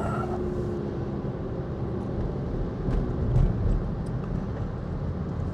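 A car driving slowly in strong gale-force wind, the wind buffeting the microphone with a steady low rumble over the engine.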